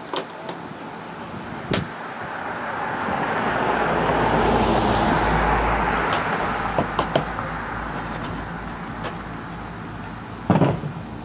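A car driving past, swelling up to a peak about five seconds in and fading away. A few sharp knocks and clunks of sewing machines being set down on a pickup's tailgate, the loudest near the end.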